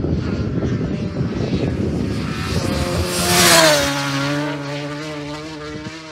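A superbike passes close at racing speed on a public-road course. Its engine note builds to a peak about halfway through, drops in pitch as it goes by, then fades as it pulls away.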